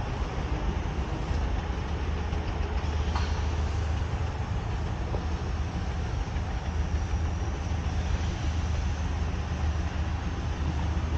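Steady low mechanical rumble of running machinery, with an even wash of noise over it and no distinct beats or strokes.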